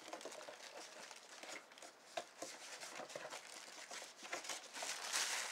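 Cardboard packaging being handled: soft rustling and light taps, with a louder rustle near the end.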